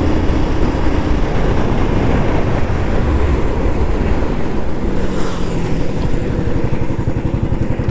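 Royal Enfield Bullet 350's single-cylinder engine running under a steady rush of wind while riding. Near the end the engine's even firing pulses come through more clearly as the bike slows under braking.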